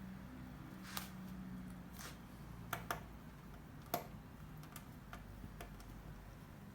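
Small screw being driven into a laptop screen's mounting with a hand screwdriver: a string of light, irregular clicks and ticks, a few of them sharper than the rest.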